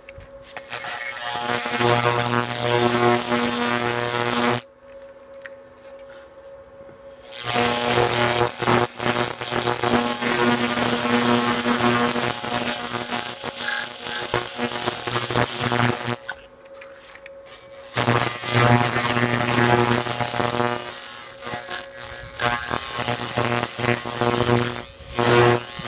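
Handheld laser cleaner stripping carbon deposits from the combustion chambers of an aluminium cylinder head: a crackling hiss over a steady buzzing hum. The hiss cuts out twice for a couple of seconds, about five and seventeen seconds in, while the hum carries on.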